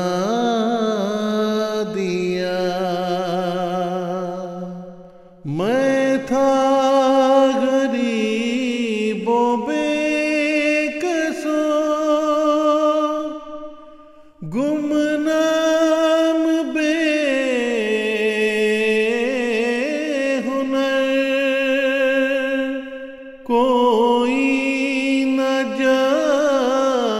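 A solo voice chanting an Urdu poem (nazm) unaccompanied, in long drawn-out phrases with wavering, ornamented held notes. It stops for a breath three times between lines.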